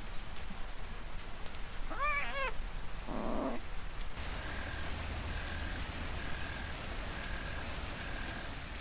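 Margay mewing: a short two-part meow, rising and falling in pitch, about two seconds in, followed by a brief rustle. Later a faint high peep repeats a little faster than once a second.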